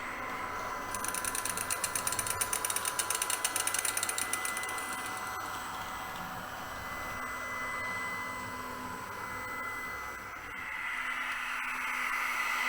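H0 model train running: a Märklin diesel shunter's motor and sound decoder, pushing a LUX track-vacuum car, with a steady whine and the hum of the vacuum. From about a second in, a rapid, even clicking clatter goes on for about four seconds.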